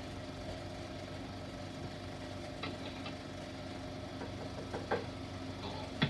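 Steady low hum with hiss and a few faint clicks: the running background noise of a 1942 16mm optical sound film transfer between lines of dialogue.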